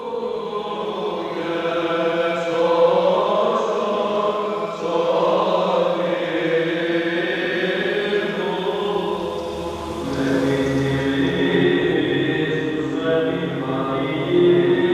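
Monks chanting a Greek Orthodox (Byzantine) service: male voices singing a slow, held melodic line. About ten seconds in, a lower sustained note comes in beneath the melody.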